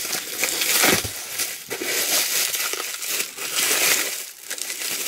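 Plastic packaging crinkling and crackling in the hands as an item is unwrapped, a busy run of short sharp crackles throughout.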